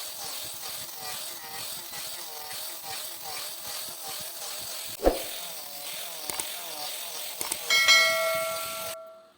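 A hand tool working walnut wood in rapid, even back-and-forth strokes, with a sharp knock about five seconds in. Near the end a metal tool rings out clearly and fades, then the sound cuts off abruptly.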